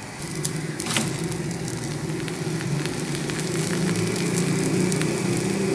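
Stuffed radish paratha frying in ghee on an iron tawa over a gas flame: a steady low rushing sizzle with light crackling, and a single tap about a second in.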